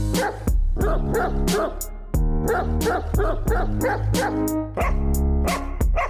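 Upbeat music with a steady, driving beat, with a dog's short yips and barks heard over it.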